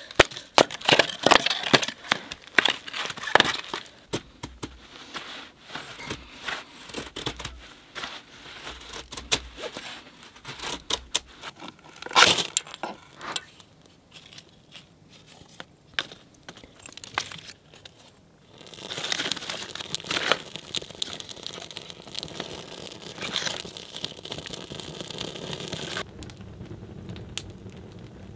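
A knife is batoned down through a split of dry wood on a chopping block: a run of sharp wooden knocks and cracking splits, the loudest about twelve seconds in. Later there is a steady crackling hiss from a kindling wood fire, which stops suddenly near the end.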